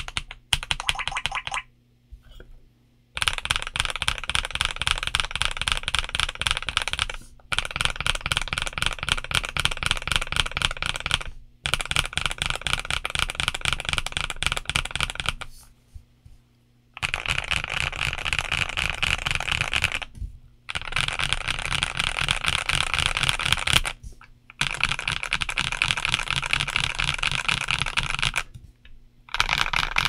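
Fast typing on a Keydous NJ98 1800-layout mechanical keyboard with its stock switches and keycaps, in runs of rapid key clicks lasting several seconds each, broken by brief pauses.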